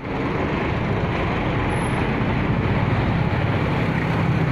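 Diesel engine of a loaded cargo truck running as it moves past close by, a steady low rumble over road traffic noise.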